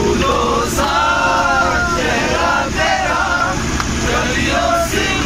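Men singing a Hindi film song together in a moving bus, one voice leading, over the steady low rumble of the bus engine.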